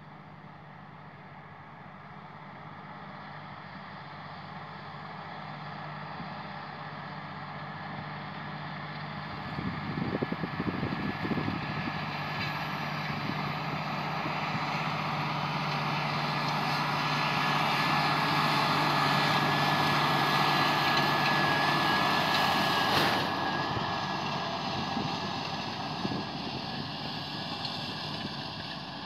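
John Deere 8310R tractor's six-cylinder diesel engine working under load as it pulls a Horsch Focus 6 TD seed drill through dry soil. It grows steadily louder as it draws near, then eases off after the loudest stretch.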